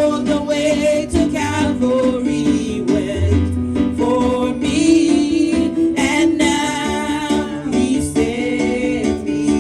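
Gospel music: singing voices with vibrato over instruments and a steady beat.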